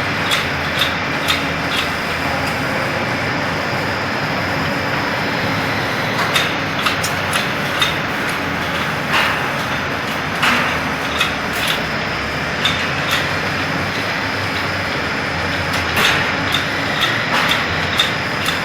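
Titanium alloy forging machinery running with a loud steady noise, with short sharp metallic clanks and knocks recurring about twice a second, some in quick clusters.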